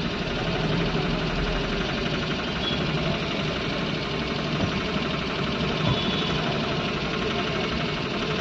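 Engines idling in slow, packed city traffic, heard from inside a car through its windscreen, as a steady engine rumble.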